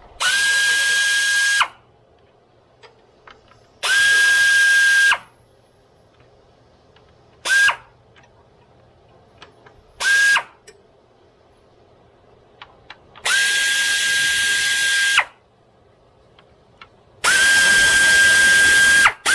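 Pneumatic air ratchet spinning out the 10 mm bolts that hold the radiator cooling fans: six runs of air hiss with a steady whine. The first two last over a second each, then come two brief blips, then two runs of about two seconds.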